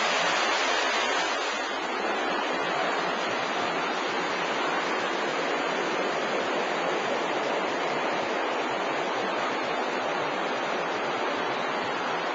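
Wastewater rushing steadily along an active underground sewer channel.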